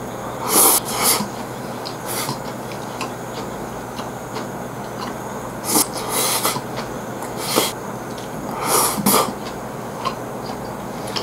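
Close-up eating noises of a yakiniku rice bowl being shovelled in with chopsticks. There are about five short, sharp slurping and sucking bursts with chewing between them, over a steady room hum.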